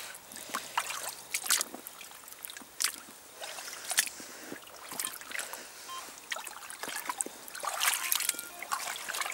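Wellington boots wading through a shallow stream: irregular splashes and sloshing water with each step over a faint trickle.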